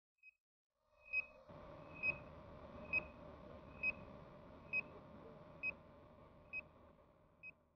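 A short, high electronic beep repeating a little faster than once a second, over a steady hum and hiss that comes in about a second in.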